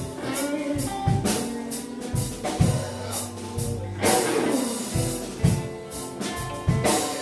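Live blues band playing a slow blues instrumental passage between vocal lines: electric guitar with gliding, bent notes over bass, drums and keyboards, the drum beats clear and regular.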